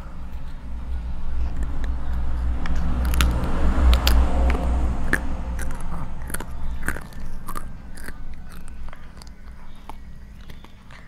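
A toddler biting and chewing a crunchy puffed ciki snack right at a clip-on microphone: a run of crisp crunches, thickest in the middle and thinning towards the end, over a low rumble.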